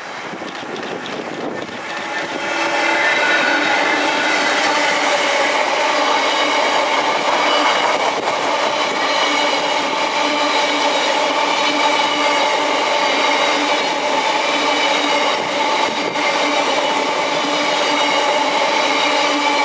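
A Class 66 diesel-hauled coal train, its hopper wagons running past close by with a steady rumble of wheels on rail and a ringing hum. The sound swells over the first two to three seconds as the train arrives, then holds steady while the wagons pass.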